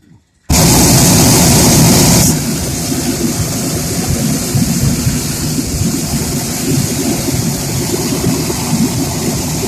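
Hot-air balloon's propane burner firing in one long burn to climb. It starts abruptly about half a second in, with a harsh hiss for the first two seconds, then settles into a steady roar.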